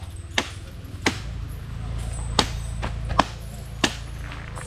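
Sharp chopping strikes, about five loud ones at uneven intervals of roughly a second, over a steady low hum.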